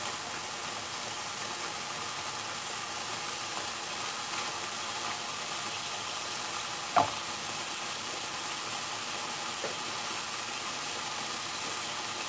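Curry sauce sizzling steadily in an aluminium frying pan on a medium gas flame as it reduces, the oil separating and a crust forming at the edges. There is one sharp knock about seven seconds in.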